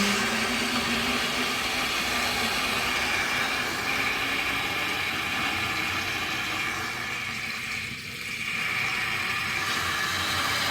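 Water rushing under pressure out of a strainer flush valve through a hose: a steady hissing rush that goes briefly quieter about eight seconds in.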